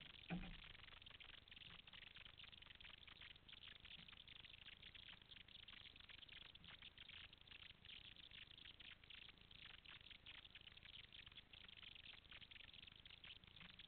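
Near silence: faint crackling hiss, with one brief low thump just after the start.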